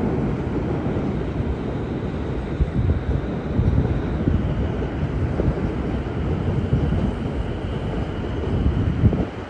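Steady low rumbling noise, with a few louder knocks along the way, that drops away suddenly at the end.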